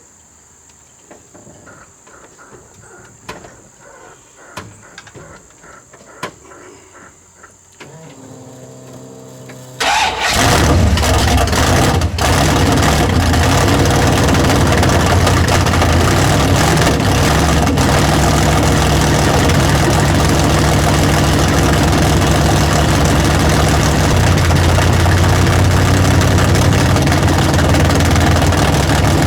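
Big-block Chevy V8 with a freshly fitted tunnel-ram intake being started for the first time after the swap. After a few faint clicks, the starter cranks briefly about eight seconds in. The engine fires about ten seconds in and keeps running loud and steady.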